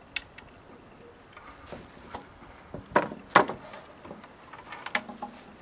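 Ruger Ranch Rifle being handled and laid across a wooden crate as a rest: a few sharp clicks and knocks, the loudest a pair about three seconds in. No shot is fired.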